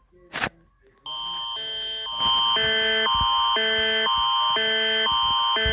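A short sharp click, then from about a second in the Canadian Alert Ready emergency attention tone: a steady high tone under two chords that swap back and forth about every half second, stepping up in loudness about two seconds in.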